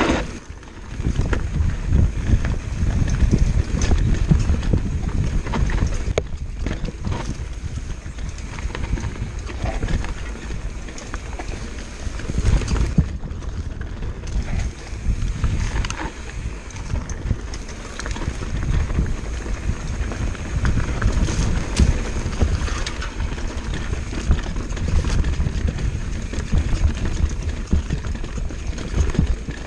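Orbea Laufey hardtail mountain bike on rocky singletrack, heard from a camera mounted on its handlebar: a continuous rumble of tyres over rock and dirt with frequent clicks and rattles from the bike jolting, and wind buffeting the microphone.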